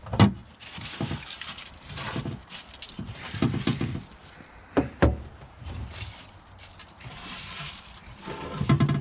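Dry leaves and debris rustling and crunching as they are pulled out of a boat by hand, with a sharp knock about five seconds in. Short voice-like sounds come twice, around the middle and near the end.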